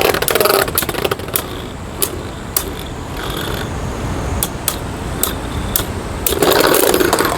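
Two Beyblade Burst spinning tops, one of them Vise Leopard, whirring around a plastic stadium and clashing with sharp clicks. The clicks come thick and fast at first, then as scattered single hits, and there is a louder rush of scraping near the end.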